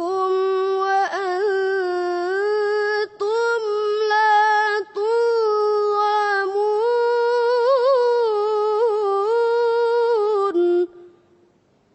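A high, clear voice reciting the Quran in a slow melodic chant, holding long notes that waver in ornamental turns, with two very brief breaks. The phrase ends about eleven seconds in.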